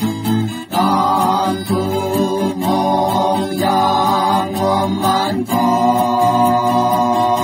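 A group of men singing a folk song together over strummed acoustic guitars; the voices come in just under a second in.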